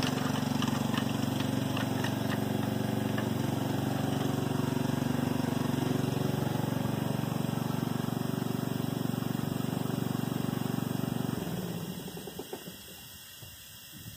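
A motor running steadily with a low, even drone, cutting out about eleven and a half seconds in; a few faint knocks follow.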